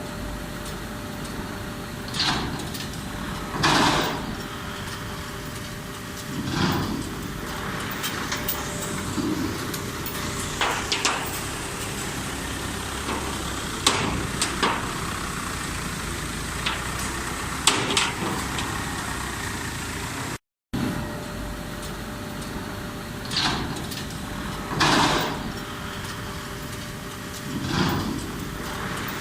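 Mini round baler running: a steady mechanical hum with a couple of held tones, broken every few seconds by rushing, clanking surges. The sound drops out briefly about twenty seconds in.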